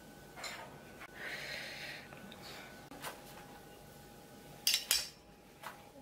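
Chopsticks and tableware lightly tapping and scraping against ceramic soup bowls while garnish is placed on the soup, with two sharp clicks close together near the end.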